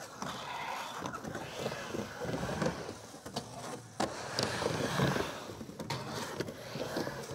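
Skateboard wheels rolling on a vert ramp, a rolling noise that swells and fades as the rider rides the walls, with several sharp clacks of the board against the ramp and coping.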